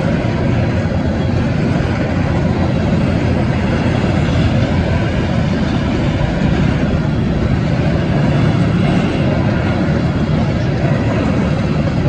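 Freight train hopper cars rolling steadily through a grade crossing, a loud continuous rolling noise of wheels on rail, with wind buffeting the microphone.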